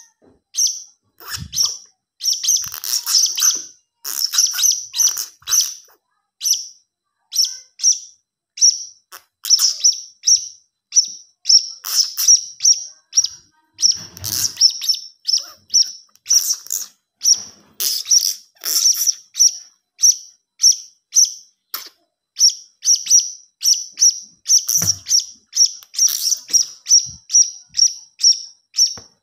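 Young blue-crowned hanging parrot (serindit) calling: a long string of short, high-pitched chirps, a few a second, in runs of several with short breaks between.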